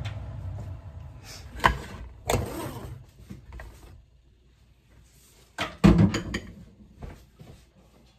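A low steady hum that dies away in the first few seconds, then a series of sharp knocks and clatters, the loudest cluster a little past halfway.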